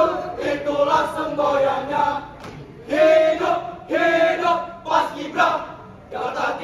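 Many voices chanting together in unison in sung, shouted phrases, with a couple of longer held notes about three and four seconds in.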